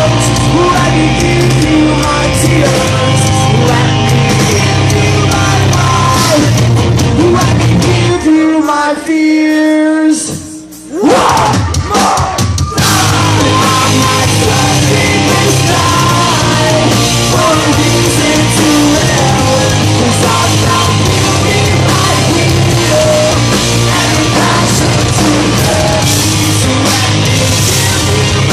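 Live metalcore band playing loud distorted guitars, bass and drums with screamed vocals. About eight seconds in, the drums and bass drop out for a few seconds, leaving a held note and then a rising sweep, before the full band comes back in near the thirteen-second mark.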